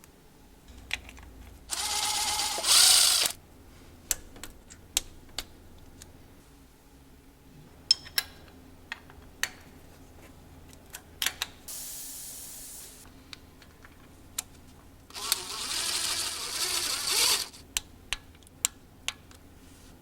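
Mechanic's tool work on a car engine: scattered sharp clicks and knocks of tools on metal parts, with two longer spells of a running tool, one about two seconds in and one about fifteen seconds in.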